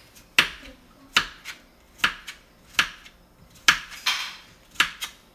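Kitchen knife slicing peeled zucchini into wedges, each cut ending in a sharp knock of the blade on a thin plastic cutting mat. There are about six cuts, a little under one a second.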